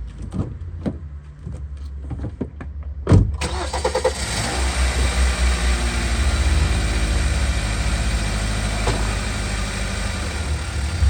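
Several clicks and knocks, then about three seconds in a sharp click and the 2014 Hyundai Sonata's engine runs steadily at idle, low and even.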